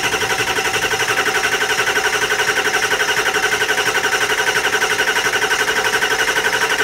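Starter cranking a 7.3-litre Power Stroke V8 turbo-diesel that does not catch: a steady starter whine over a fast, even chug of compression strokes. The long crank is needed to work air out of the high-pressure oil system, which has just been opened up for new lines.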